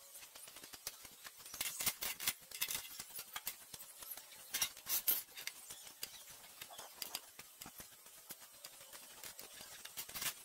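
Irregular light clicks, taps and scrapes of small metal parts and hand tools being handled, with louder clacks about two and five seconds in.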